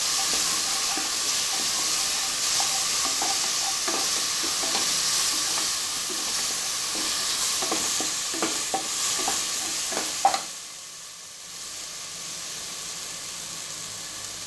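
Onions, tomatoes and ginger-garlic paste sizzling in oil in an aluminium pressure cooker, with a wooden spatula stirring and scraping the pot bottom in frequent short scrapes and clicks. About ten seconds in there is a sharp knock, the scraping stops, and the sizzle carries on more quietly.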